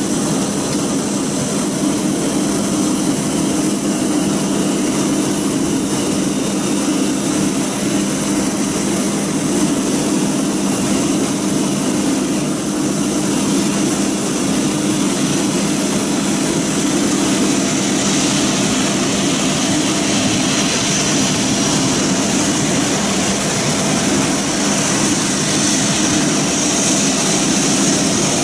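Boeing 737 airliner's twin turbofan engines at taxi power: a steady jet whine and rush over a low hum, the high whine growing stronger in the second half as the plane comes close.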